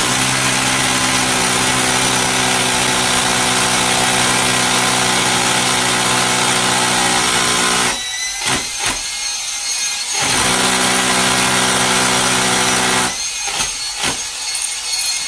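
Cordless drill boring into a brick wall. It runs steadily for about eight seconds, stops with a couple of short blips, runs for about three seconds more, pauses again and starts up once more near the end.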